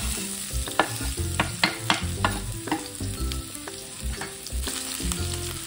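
Minced ginger sizzling in hot cooking oil in a wok, with frequent sharp crackles from the spitting oil. The aromatics are frying until fragrant, before the rest goes in.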